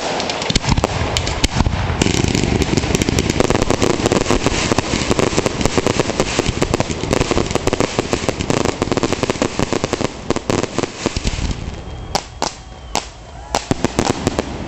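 Fireworks display: a dense barrage of rapid crackling pops and bangs from about two seconds in, thinning near the end to a few separate loud bangs.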